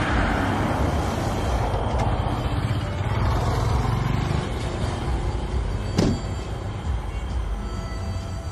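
A car pulling up and idling: a steady low engine rumble with road noise that is loudest at first. A short sharp click about six seconds in.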